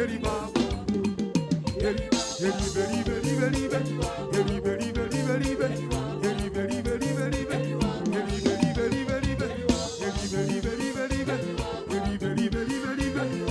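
Upbeat band music with drums, a repeating bass line and held keyboard chords.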